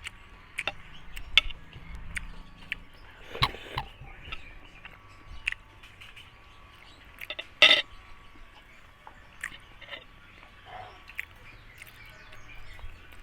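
A person chewing and eating chicken curry close to the microphone: wet mouth smacks and short clicks, with one sharper click about halfway through.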